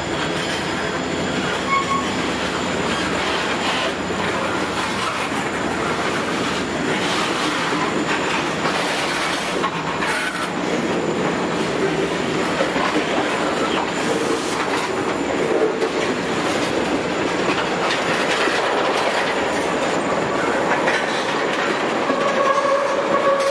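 Freight cars, covered hoppers and tank cars, rolling past close by: a steady rumble of steel wheels on rail with a rhythmic clickety-clack over the rail joints. Near the end a wheel squeal comes in as a steady tone.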